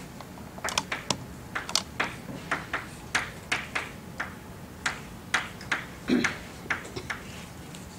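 Chalk writing on a blackboard: a quick, irregular run of taps and short scratches, about three strokes a second, starting about half a second in and stopping about a second before the end.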